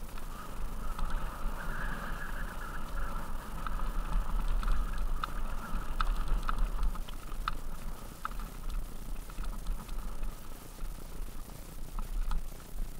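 Mountain bike riding downhill on a rough dirt and gravel track: tyres rumbling over loose stones and the bike rattling, with scattered sharp clicks as stones are struck. A steady higher-pitched whine runs through much of it, alongside a low rumble.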